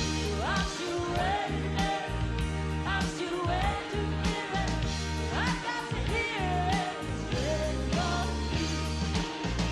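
Country-rock band music: a steady beat with bass and drums under a lead melody line that glides up into held notes.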